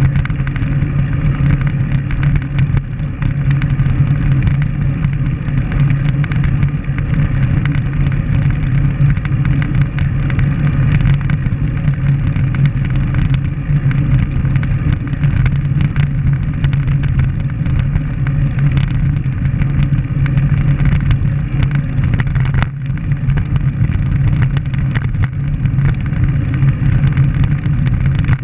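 Steady wind rush and road noise on the microphone of a camera moving along with a road bike at riding speed.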